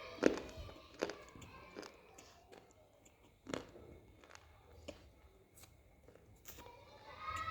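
Multani mitti (fuller's earth clay) being bitten and chewed close to the microphone: irregular, dry crunches about a second apart, the loudest just after the start.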